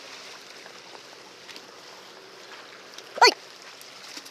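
Steady wash of seawater at the shore, with a man's short, loud shout about three seconds in.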